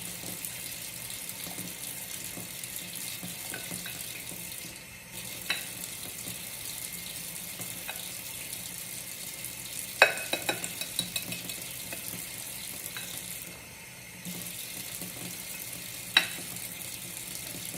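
Wire whisk stirring thin pancake batter in a bowl: a steady wet swishing that stops briefly twice, with sharp clicks of the whisk hitting the bowl, the loudest cluster about ten seconds in.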